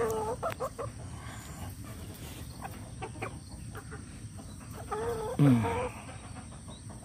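Chickens clucking and calling, with two louder calls: one right at the start and one about five and a half seconds in.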